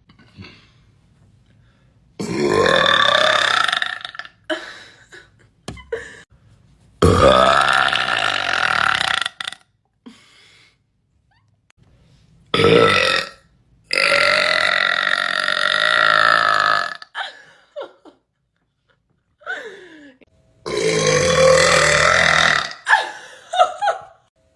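A woman burping loudly, five long belches of about one to three seconds each, with short quieter sounds between them.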